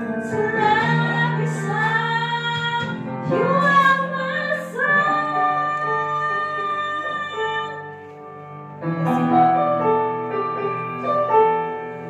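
A woman singing karaoke into a handheld microphone over a backing track with piano, holding long notes, with a brief lull about eight seconds in.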